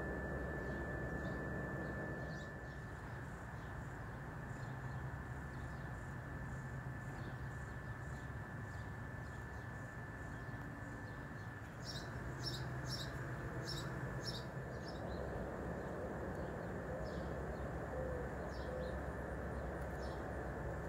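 Outdoor ambience: a steady low rumble with short, high bird chirps scattered throughout and a quick run of them about twelve seconds in. A thin steady high tone stops just before the run.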